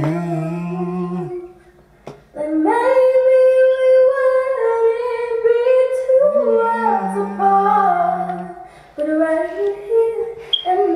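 A young woman singing solo, a slow melody with long held, wavering notes and a short break about two seconds in. A second, lower voice sounds under her twice, near the start and about two thirds of the way through.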